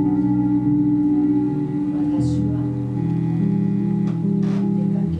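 Electric bass played through effects as a sustained drone, holding layered notes that shift to new pitches about two seconds in and again near the end.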